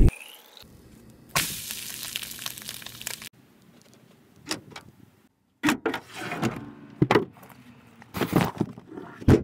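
Water running for about two seconds, then a string of sharp clicks and knocks.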